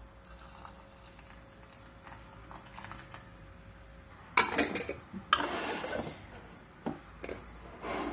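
Faint for about four seconds, then glass canning jars and their metal twist-off lids clatter and scrape against each other on a countertop. A few sharp clinks follow near the end as the lids go on.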